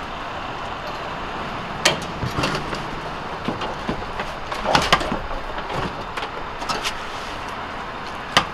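Sharp clanks and rattles of metal wreckage and chain-link fencing being pulled and handled. Three louder knocks stand out over a steady background rumble.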